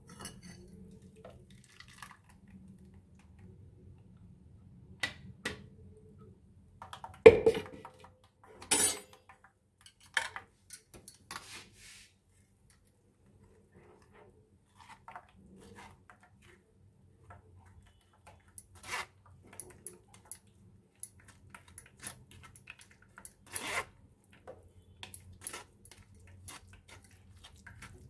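Metal spoon scraping and stirring wet ground fennel pulp in a stainless-steel mesh strainer, in short, irregular scrapes and clinks, with two louder clatters about seven and nine seconds in.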